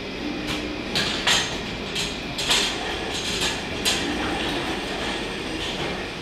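A series of irregular knocks and clatters, about seven in the first four seconds, over steady background noise.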